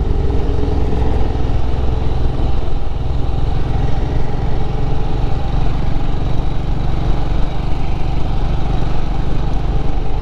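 Royal Enfield Himalayan's single-cylinder engine running steadily at riding speed, mixed with wind and road noise, with its pitch shifting slightly in the first few seconds.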